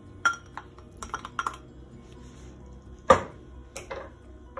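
Light glass clinks and knocks from a small glass bowl tapping against a glass mixing bowl as diced tomatoes are tipped out. The knocks come in a loose scatter, and the loudest is about three seconds in.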